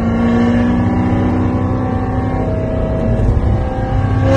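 ProCharger-supercharged 2016 Chevrolet Corvette's V8 engine droning steadily at highway cruise, heard from inside the cabin along with road noise. Its pitch sags slightly.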